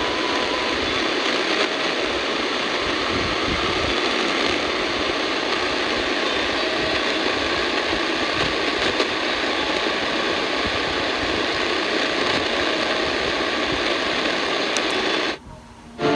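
Portable AM radio receiver tuned to 1098 kHz giving out steady static hiss, with no station's voice or music coming through. It cuts out about a second before the end, as the radio steps to the next channel.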